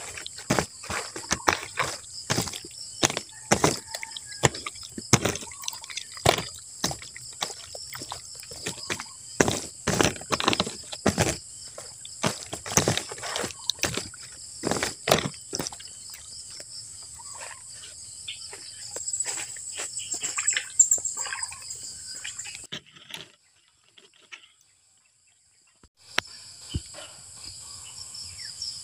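Wet squelching and slapping of hands kneading raw chicken pieces in marinade, in irregular bursts that thin out past the middle. A steady high insect drone runs underneath, and all sound drops away for about three seconds near the end.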